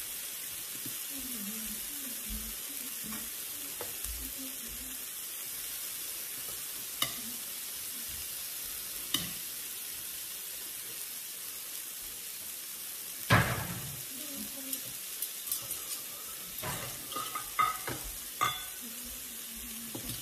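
Chicken and thin slices of red meat sizzling steadily on an electric tabletop grill plate, with a few sharp clicks of metal tongs against the grill and one louder knock about two-thirds of the way through, followed by a scatter of clinks.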